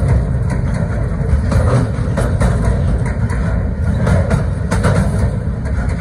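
Container freight wagons rolling past on the track: a steady heavy rumble of steel wheels on rails, with scattered sharp clacks as the wheels run over the rail joints.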